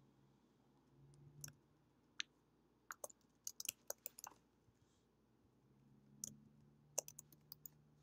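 Computer keyboard keys clicking faintly in two short runs of typing, with a few single keystrokes.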